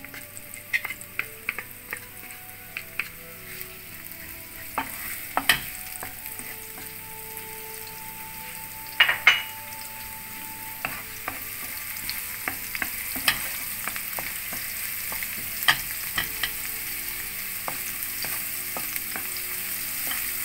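Chopped spring onion and garlic sizzling in olive oil in a hot pan, with a utensil clicking and scraping against the pan as they are stirred; the sizzle grows slowly louder.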